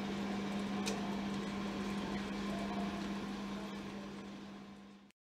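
Steady indoor room hum: a low drone with a faint hiss behind it and a single light click about a second in, fading out in the last second.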